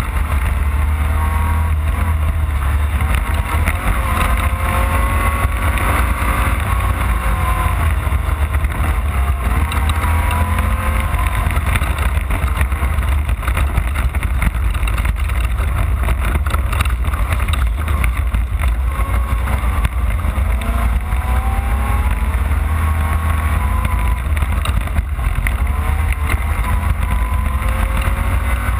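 Off-road race car's engine heard from onboard, revving up and down repeatedly over a heavy low rumble, with frequent knocks and rattles from the rough course.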